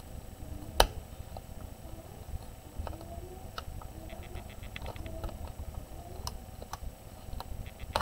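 Small clicks and taps of a tool working at the tiny wifi antenna cable connectors on a Lenovo 100e Chromebook motherboard, with one sharp click about a second in and fainter ticks scattered after it, over low handling rumble.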